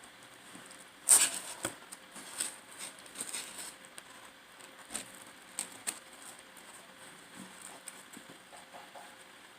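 Close-miked eating sounds: a sharp crunchy bite into pizza about a second in, then chewing with scattered crackles and wet clicks that thin out in the second half.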